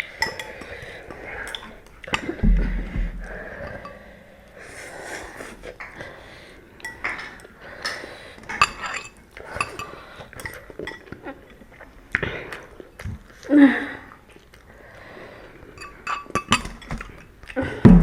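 Eating utensils clinking and knocking against bowls and dishes while noodles are eaten, in irregular sharp taps scattered throughout.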